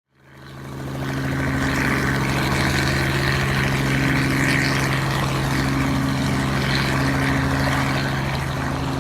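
A vehicle running steadily: a constant engine hum with a rushing noise over it, fading in over the first second.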